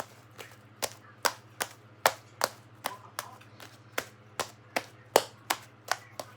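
Homemade slime being squeezed and worked in the hands, popping trapped air with sharp clicks about two and a half times a second.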